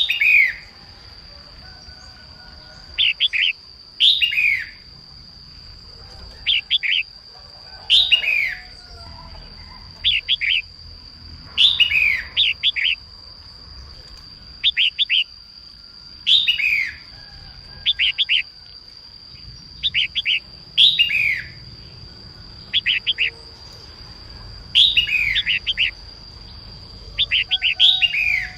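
Female red-whiskered bulbul calling in short phrases about every two seconds, alternating clusters of quick notes with falling whistled sweeps. A steady high tone runs underneath throughout.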